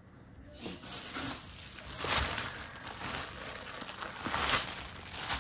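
Crinkling, rustling handling noise of leather shoes and their paper stuffing being moved about, swelling about two seconds in and again near four and a half seconds.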